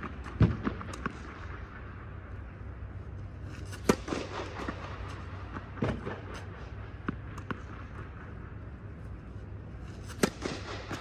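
Tennis racket striking balls on practice serves: several sharp pops a few seconds apart, the loudest about half a second in and about four seconds in. Fainter knocks of balls landing and bouncing come between them, over a steady low hum.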